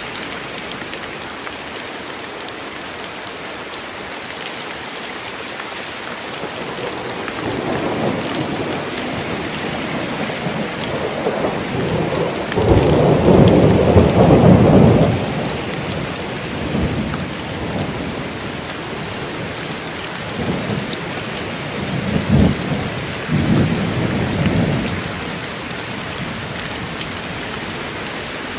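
Steady rain falling in a forest, with thunder rumbling through it: the rumbles build from about a quarter of the way in to a loud peal near the middle, followed by a few shorter, weaker rumbles before the rain continues alone.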